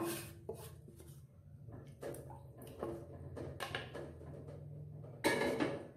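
A wok and spatula knock and scrape against an enamel saucepan as spiced liquid is scraped from the wok into the pot. There is a sharp hit at the start and a louder clatter near the end, over a low steady hum.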